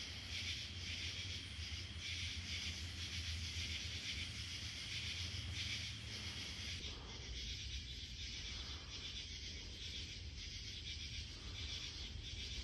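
Night-time woods ambience: a steady, rapidly pulsing chorus of insects, with a low hum beneath.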